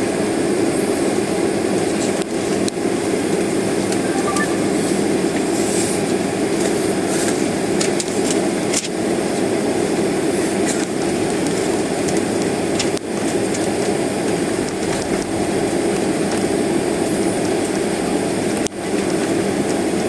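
Steady cabin noise of an airliner taxiing: jet engines at low taxi thrust under the air-conditioning hum, with a few faint clicks and rattles.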